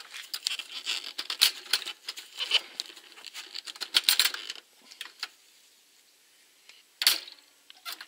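Metal clicking and rattling from the wick-raising mechanism of a paraffin heater as its dial knob is pushed onto the shaft and turned by hand to wind the wick up. The clicking stops after about four and a half seconds, and a single short, sharp sound follows near the end.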